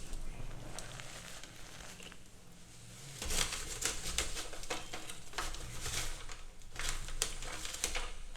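Close-miked chalk being crushed and crumbled, a crackly crunching full of sharp little clicks that swells into three louder bursts in the second half.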